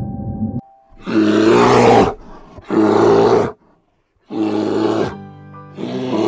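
Soft background music cuts off, then a bear roars in four loud, rough bursts about a second long each, separated by short pauses.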